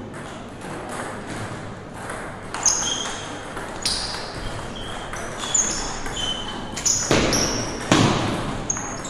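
Table tennis rally: a celluloid-type ball ticking off paddles and the table, each hit a sharp click with a brief high ping, irregularly spaced, echoing in a large hall. A louder rush of noise comes about seven and again about eight seconds in.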